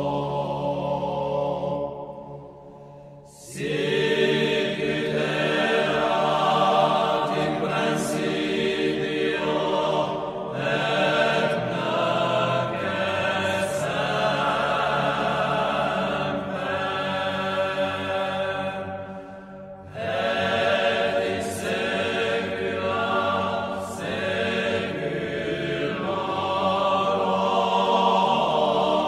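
A choir chanting, long sustained sung phrases with short breaks about three seconds in and again about twenty seconds in.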